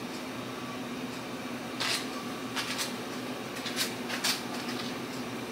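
A steady appliance hum, with several light knocks and clacks of kitchen items being handled between about two and four and a half seconds in.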